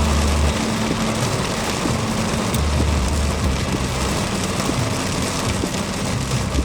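Car driving in heavy rain: a steady hiss of rain and wet-road tyre noise over a low engine hum.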